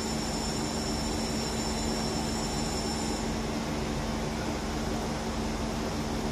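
Diesel engines of the KiRoShi 47 sightseeing railcar idling at the platform: a steady drone with a low hum, while a thin high-pitched tone stops about three seconds in.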